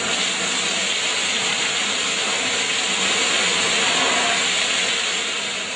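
Emergency safety shower pouring a heavy stream of water down onto a person, a steady rush that starts easing off near the end.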